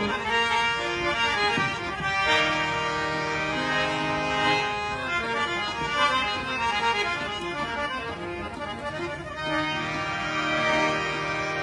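Harmonium playing held notes and chords in a steady melodic phrase, the second harmonium being checked during a qawwali sound check.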